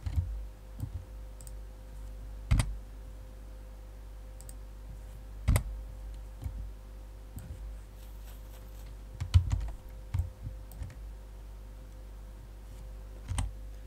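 Scattered clicks of a computer mouse and keyboard, a few seconds apart, with a small cluster near the ten-second mark, over a low steady hum.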